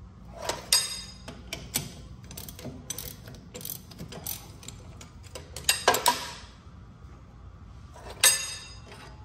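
Hand wrenches working the bolts on a Ford 7600 tractor's draft cover: irregular ratchet clicks and steel tools knocking on metal. Louder ringing clanks come about six seconds in and again near the end.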